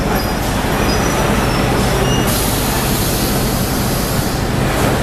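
A diesel train standing at the station platform, its engine running with a steady low rumble. Brief high-pitched squeals sound in the first two seconds, and a hiss comes in a little over two seconds in.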